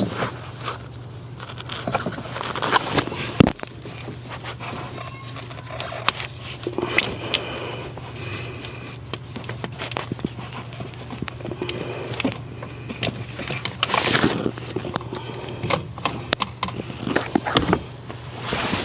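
Irregular clicks, knocks and scraping of plastic and metal parts being handled while an ignition coil pack is fitted and its plug wires are pushed on, over a steady low hum.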